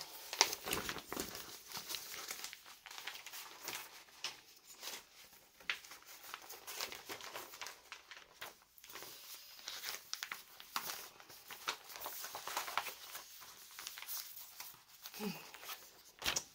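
Packaging of a cross-stitch kit crinkling and rustling in irregular bursts as it is handled and folded.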